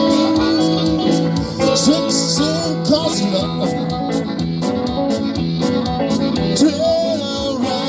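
Band playing an instrumental break: an electric guitar takes the lead with bent notes over a steady drum beat.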